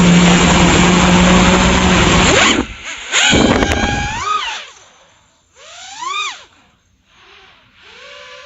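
FPV quadcopter's brushless motors: a loud rushing run at high throttle for the first two and a half seconds, then three throttle punches about two seconds apart, each a whine that rises and falls in pitch.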